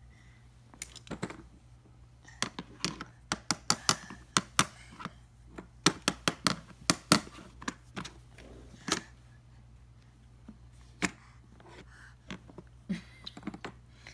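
Hard plastic toy workbench parts clacking and knocking as a baby slaps and handles them: irregular sharp taps that come in quick clusters, with pauses between.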